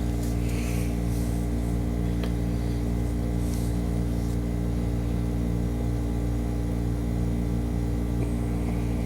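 A steady low hum made of several unchanging tones, like mains or appliance hum, with a few faint soft rustles over it.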